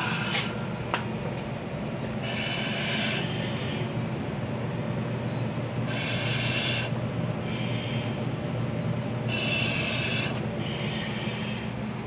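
Firefighter breathing through a self-contained breathing apparatus mask: a hissing rush of air through the regulator on each breath, about every three to four seconds, over a steady low hum.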